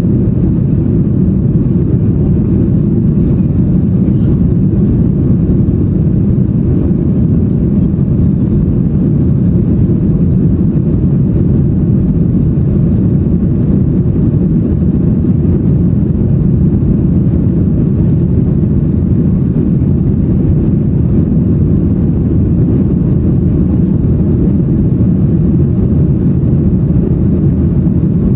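Steady low roar inside the cabin of a Boeing 737-800 climbing after takeoff: its CFM56-7B turbofan engines and the air rushing past the fuselage, heard from a window seat over the wing. Even and unchanging, with no sudden sounds.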